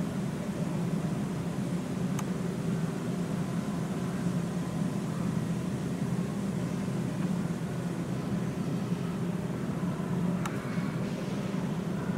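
Steady low mechanical hum, with two faint clicks about two seconds in and near the end.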